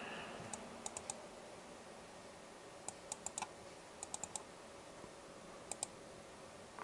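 Sharp clicks from a laptop's keys and touchpad buttons, in four quick bursts of two to five clicks each.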